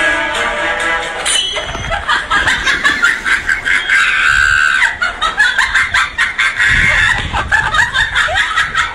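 A music cue ends about a second and a half in. Then comes high-pitched cackling laughter in quick repeated peals.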